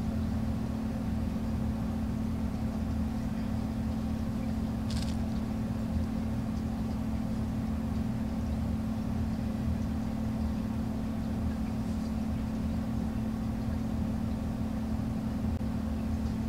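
Steady low mechanical hum with a constant droning tone, unchanging throughout, and a faint brief tick about five seconds in.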